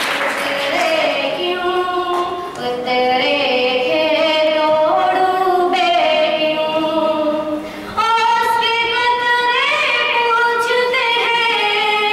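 A girl singing a slow Urdu song solo and unaccompanied, holding long notes that glide between pitches. Applause dies away at the very start.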